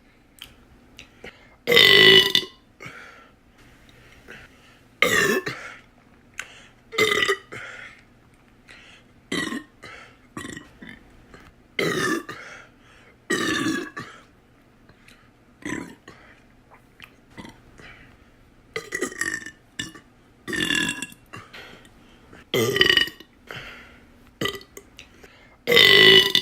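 A person burping over and over: about a dozen loud burps, one every couple of seconds, with smaller sounds in between.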